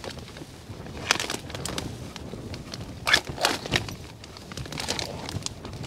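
Plastic ration-pack bag and the foil food packets inside crinkling and rustling as hands peel the bag open and rummage through it, in a few short separate crackles.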